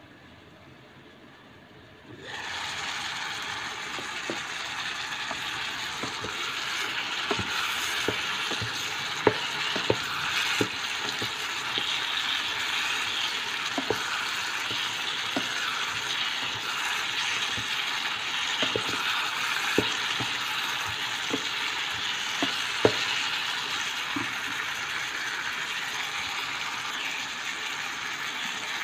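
Vegetables and textured vegetable protein sizzling as they stir-fry in an electric skillet, starting suddenly about two seconds in and hissing steadily from then on. Short clicks and scrapes come throughout from a spatula stirring the food against the pan.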